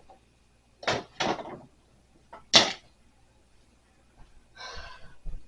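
Dismantled drawer parts being handled and set down: three sharp knocks, two close together about a second in and a louder one about halfway through, then faint rustling near the end.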